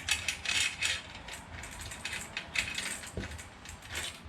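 Loose roller chain of a 1968 Schwinn Racer 3-speed clinking and rattling as it is pulled off the sprockets, a quick run of metallic jingles and clicks that thins out after the first second or so.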